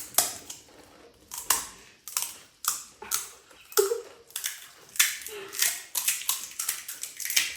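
Crisp, hollow pani puri shells crunching as they are bitten and chewed, an irregular run of sharp crackles about two a second.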